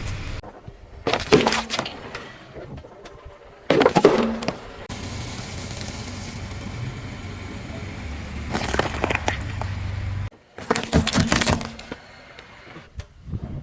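Objects crunching and cracking as a car tyre rolls over and crushes them, in four separate bursts, over a steady low hum.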